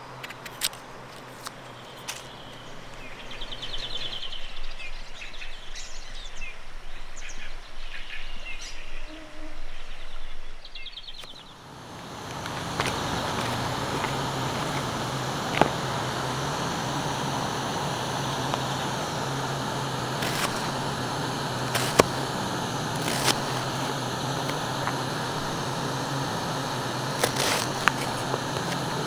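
Birds chirping over a quiet background at first. From about twelve seconds in, a portable gas burner under the soup pot gives a steady, even hiss with a low hum, broken by a few light clicks.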